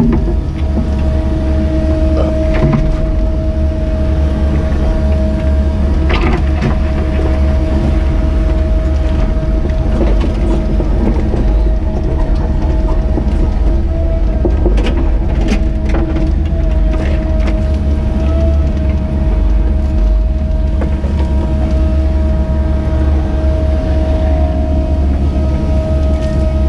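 Caterpillar 307E2 mini excavator's diesel engine running steadily under working load, heard from inside the cab, with a steady whine over its low drone. Occasional clicks and knocks come through as the machine digs and moves a loaded bucket.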